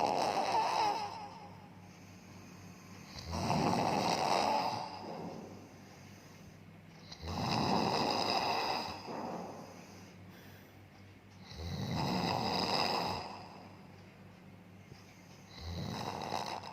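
A man snoring in his sleep. One snore comes about every four seconds, each lasting a second or two, with quiet breathing between.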